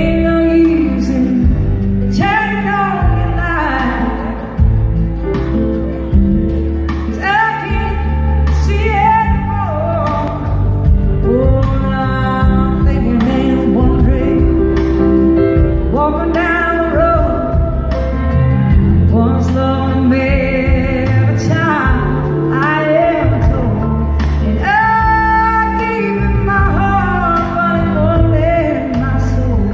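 Live rock-blues band playing, with a woman singing the lead vocal over electric guitar, bass and drums, heard from the audience.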